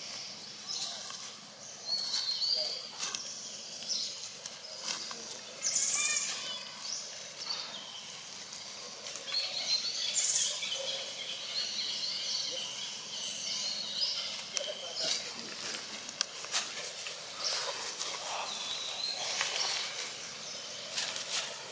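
Outdoor ambience with scattered high-pitched animal chirps and calls, some wavering, and a few sharp clicks or taps.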